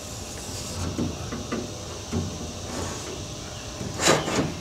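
Handling noises on a sheet-aluminum boat floor: a few light knocks and scrapes, then a louder sliding scrape about four seconds in.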